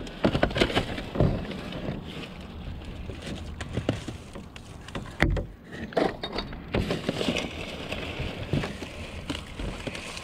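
Rummaging through garbage in a dumpster: plastic bags and packaging rustling and crinkling, with irregular knocks and clunks as boxes and packages are moved around.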